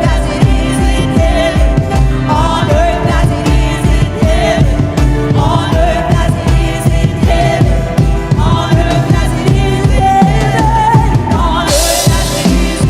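Live worship band music: a gliding sung melody over a steady kick-drum beat and full band, with a cymbal crash near the end.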